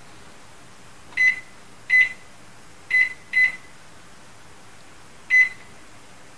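GE over-the-range microwave's keypad beeping as its buttons are pressed to set a 10-minute timer: five short, high beeps, four within about two seconds and a last one about two seconds later.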